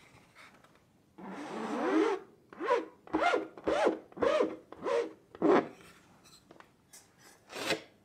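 Rubber squeegee scraping ink across a screen-printing mesh: one longer stroke about a second in, then about six short scraping strokes at roughly two a second, each with a squeaky rising-and-falling tone, and two fainter ones near the end.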